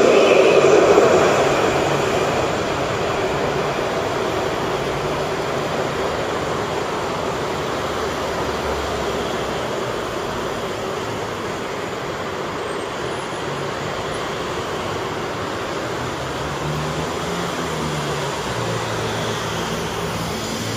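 A tram passing close by on street rails, its running noise fading away over the first couple of seconds. After that, a steady hum of street traffic, with a low engine hum coming up near the end.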